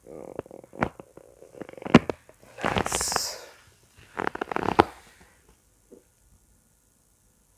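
Scattered creaks, clicks and rustles from a padded treatment table and the patient's clothing as his raised leg is stretched, bent and lowered, with a longer rustling hiss about three seconds in and a cluster of crackles a little after four seconds.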